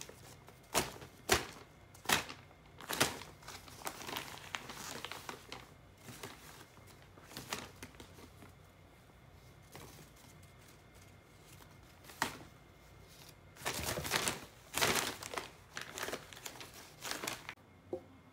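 Paper shopping bag crinkling and rustling in irregular bursts and sharp crackles as a cat thrashes on it and paws at a teaser toy rubbing over the paper. The busiest stretch comes a few seconds before the end.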